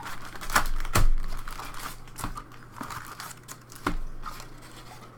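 Plastic wrapping on a box of trading cards crinkling and tearing as it is opened, in irregular rustles with a few sharper crackles.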